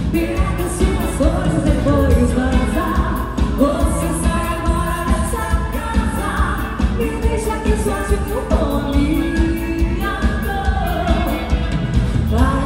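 A live southern Brazilian bandinha dance band playing loudly over the PA: a woman singing over guitar, drums and a steady dance beat with heavy bass.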